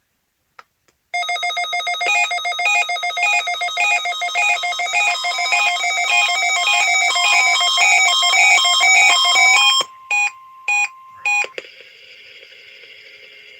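Emergency Alert System test signal on NOAA Weather Radio: a loud, dense run of rapidly warbling electronic data tones from the SAME (Specific Area Message Encoding) encoder, lasting about nine seconds. Three short bursts and a fainter steady tone follow.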